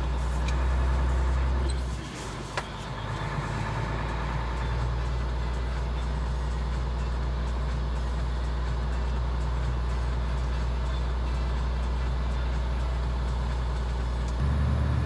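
Truck tractor's diesel engine running steadily as a low hum, which dips about two seconds in, with a single click, and steps up again near the end.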